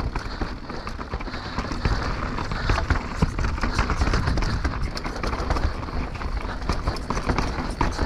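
Mountain bike descending a rough, rocky trail: a continuous low rumble from tyres and suspension over stones, with dense rattling and clattering knocks from the bike, heard close up on an action camera.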